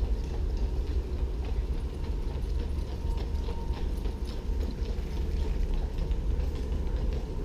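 Steady low rumble on the microphone, with faint scattered footsteps on a paved path.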